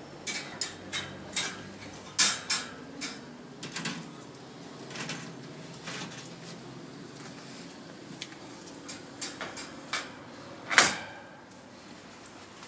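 Wire pet cage rattling and clanking as it is handled and a food dish is put inside: a run of sharp clicks and knocks, the loudest a single knock near the end.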